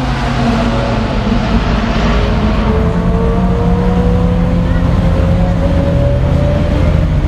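Car engines running, one steadily rising slowly in pitch, with voices in the background.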